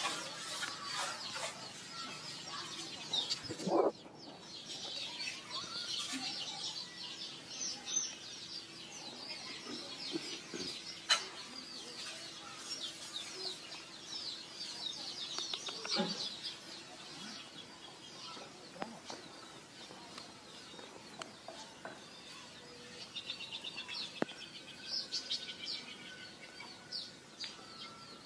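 Background birds chirping, many quick high chirps without pause, with a few sharp knocks along the way.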